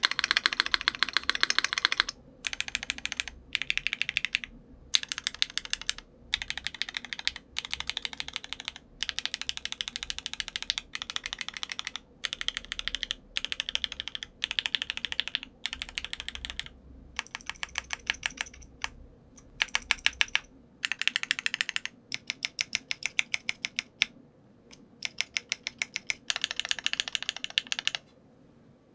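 Typing on a Metakey TENET70 mechanical keyboard with a polycarbonate plate, lubed Alpaca v2 linear switches and GMK doubleshot ABS keycaps. Quick runs of keystrokes are broken by short pauses every second or two.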